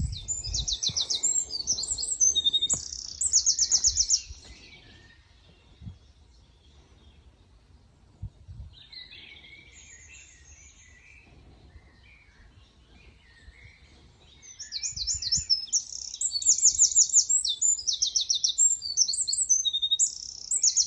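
Woodland songbirds singing: loud runs of rapid, high repeated notes in the first few seconds and again from about fifteen seconds on, with softer calls in between.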